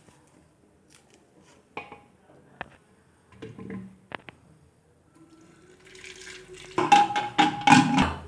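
A few knocks and clicks in a kitchen, then about six seconds in a tap runs hard, water splashing into a vessel for about two seconds.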